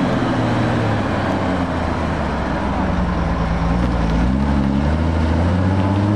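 Heavy truck's diesel engine under load as the truck drives off. The engine note sinks over the first few seconds, then climbs again from about four seconds in.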